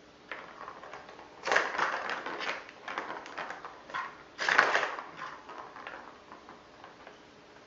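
Small plastic ball rolling and rattling around a plastic figure-eight cat track toy as kittens bat at it, with two louder rattling spells, about a second and a half in and again about four and a half seconds in, and lighter clicks between.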